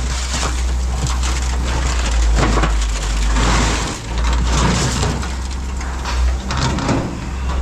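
Scrap metal clattering and scraping as pieces are handled and shifted, with irregular knocks throughout, over a steady low hum.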